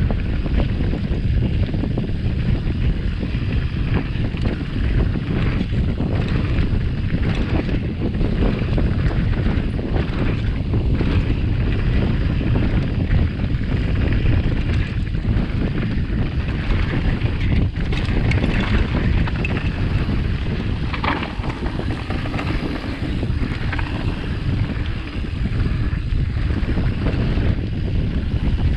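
Mountain bike ridden down a dirt enduro trail: constant wind buffeting on the camera microphone over tyre noise, with frequent short knocks and rattles from the bike over bumps.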